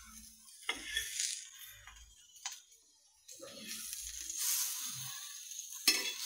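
Steel spatula scraping and scooping sautéed onions across a dosa griddle and onto a steel plate, with a few sharp metal clinks. A longer stretch of scraping and sizzling hiss fills the second half.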